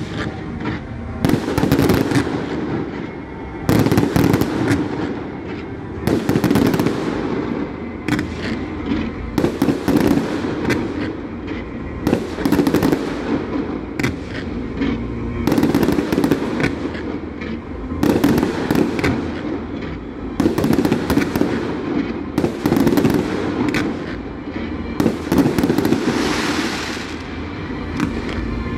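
A fireworks display: a continuing series of loud bangs about every second or two, with crackling after the bursts. A long crackling wash comes near the end.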